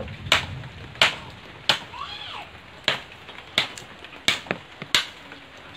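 Firewood being chopped by hand: about seven sharp strikes of a blade into branches, roughly one every two-thirds of a second.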